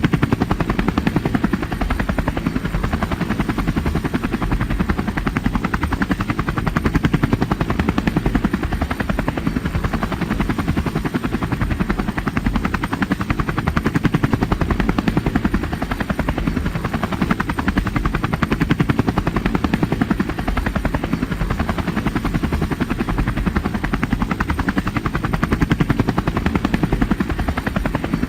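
Helicopter in steady flight: a loud, continuous, rapid chop of the rotor blades over a deep engine rumble.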